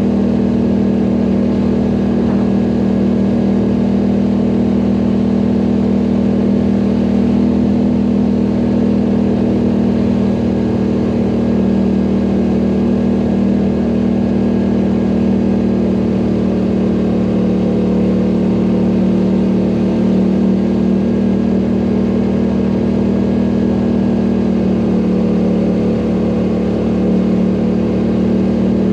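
ATV engine running steadily under load on a climb, with a steady drone that drops slightly in pitch midway and picks up again near the end.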